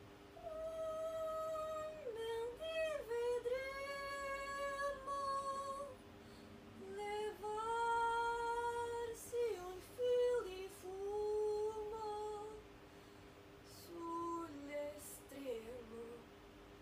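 A woman singing without words, long held notes joined by slides, in phrases of one to four seconds with short breaks. A faint steady hum lies underneath.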